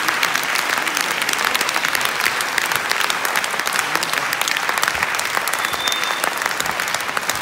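Concert audience applauding: steady, dense clapping from a large crowd.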